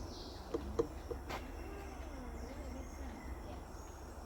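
Quiet forest ambience with faint distant voices. A falling high whistle sounds right at the start, and a few short clicks and chirps come about a second in.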